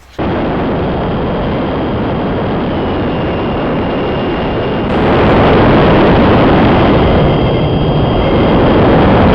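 Small radio-controlled jet model in flight: a loud, steady rushing noise with a faint high whine over it. It starts abruptly and grows louder about five seconds in.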